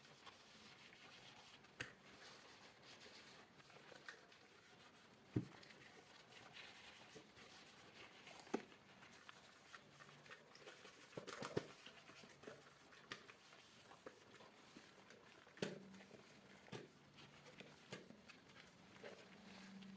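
Quiet, soft rubbing of a cleaning cloth over desk objects, with scattered light clicks and knocks as the items are handled and set down; the loudest knocks come about five seconds in and around eleven seconds in.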